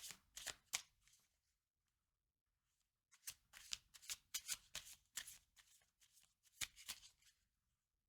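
A deck of tarot cards being shuffled by hand, faint: a short run of quick card clicks, a pause of about two seconds, then a longer run of card clicks.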